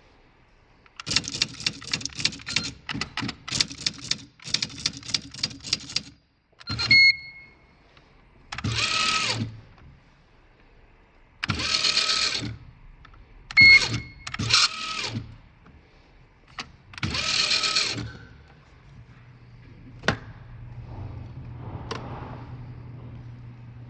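IBM/Lexmark Wheelwriter 15 electronic typewriter at work: a rapid run of sharp clicks as the daisywheel prints characters, then a short beep and several one-to-two-second whirring runs of the carrier moving. Near the end the typewriter's motor hums steadily.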